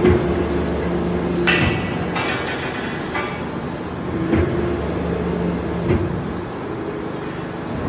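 Sectional spiral flight forming machine running with a steady hum while a steel flight blank is worked in its forming head, with sharp metal knocks and a stretch of scraping about a second and a half in.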